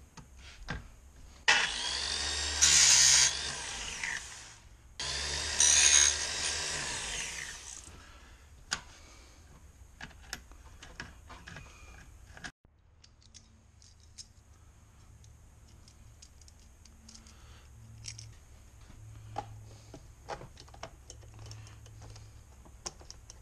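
Small powered chainsaw-chain sharpener running twice, for about three seconds each time, grinding the teeth of a dull saw chain. Each run grows louder partway through. Light clicks and handling follow.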